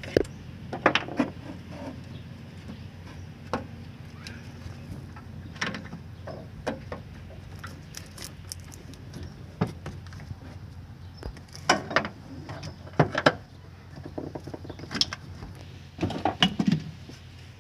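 Hand tools clicking and clinking against metal engine parts, in scattered short knocks, while the engine's top end is being taken apart.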